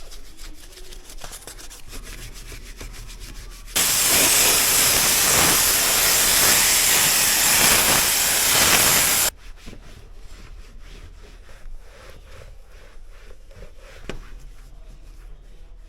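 Rubbing and scraping, then a loud, steady hiss that starts suddenly about four seconds in and cuts off sharply after about five and a half seconds, followed by more rubbing.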